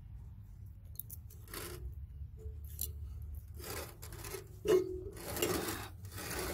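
Hand tools scraping and rubbing on the steel blade mount of a rusted Murray 38-inch riding mower deck as the cutting blade is worked loose, in several short scrapes with one sharp metallic clank with a brief ring about two-thirds of the way through.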